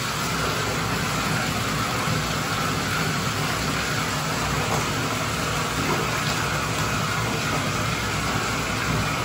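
Water running steadily into a bathtub from the faucet, a constant rushing noise.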